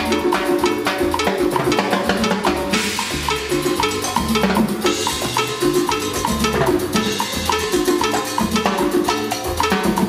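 Congas played by hand in a fast salsa groove, with timbale and cymbal accents. Cymbal crashes ring out about three, five and seven seconds in.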